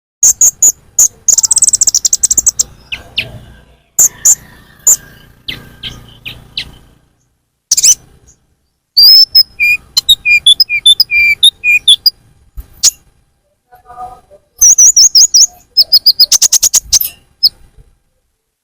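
Recorded lure call of the konin (kolibri ninja), a sunbird: loud, sharp high chirps and rapid trills in bursts separated by short pauses.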